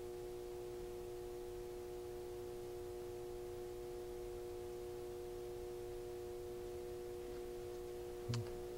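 Steady background hum made of a few fixed tones, with a single light knock near the end, fitting a plastic paint bottle being set down on the table.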